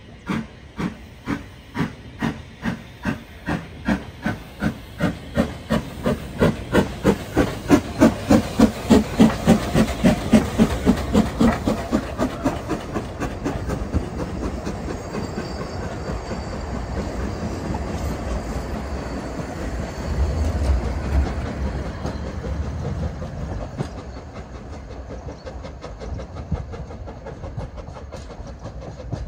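Narrow-gauge steam tank locomotive pulling away with a train of carriages, its exhaust chuffs quickening from about one a second to about three a second and loudest as it passes, with a hiss of steam. The carriages then rumble past on the rails and the sound fades as the train draws away.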